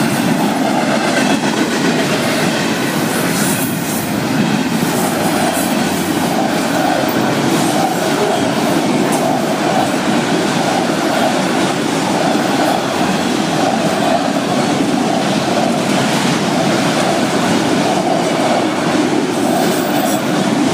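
Florida East Coast Railway freight train's cars rolling past at speed, a steady, loud rumble and rattle of steel wheels on the rails.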